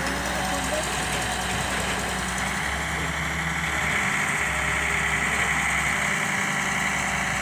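Heavy diesel engine running steadily at idle, with a higher whine growing a little louder about halfway through.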